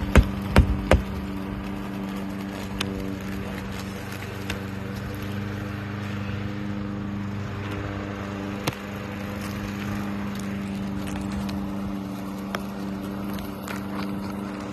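A few sharp hammer-like knocks in the first second, then a steady low engine hum with occasional light ticks.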